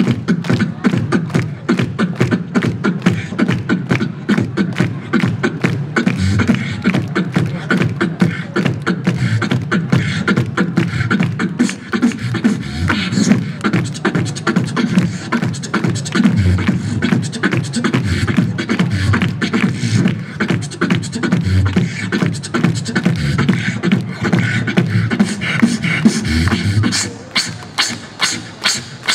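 Beatboxing amplified through a handheld microphone and PA speakers: a continuous fast beat of mouth-made kick, snare and hi-hat sounds. Near the end the low kicks drop out, leaving a rapid, even run of hi-hat clicks.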